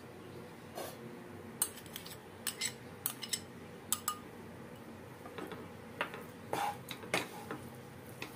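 A spoon scraping and tapping against a bowl as mawa is emptied into a pan, then a wooden spatula mixing it into grated coconut in a non-stick kadhai: a string of light clinks and knocks at uneven intervals over a faint steady hum.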